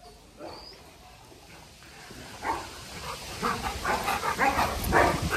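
Dogs giving a string of short barks and whines, starting about halfway in and getting louder near the end.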